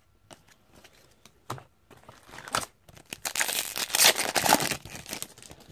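Trading card pack wrapper being torn open and crinkled in the hands: a dense crackly rustle from about three seconds in, after a few faint clicks of cards being handled.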